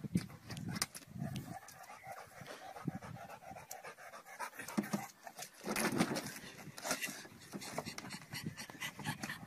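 A large dog panting, with irregular scuffs and knocks as it paws at a car's open boot and is lifted in.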